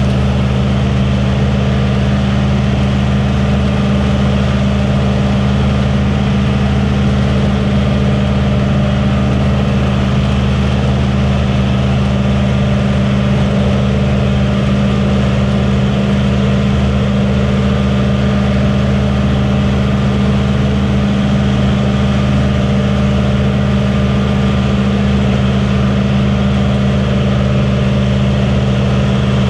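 A combine running steadily in the field, its engine a constant low drone with the machinery's hum layered over it.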